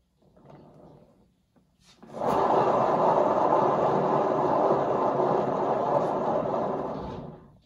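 HomeRight paint turntable spun hard by hand, its bearing running with a steady noise. A previous spin dies away at the start, then a fresh push about two seconds in starts it again abruptly, and it fades out near the end as the turntable slows.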